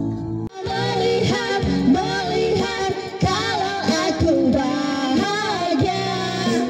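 Karaoke duet: two women singing into handheld microphones over backing music, after a brief break about half a second in.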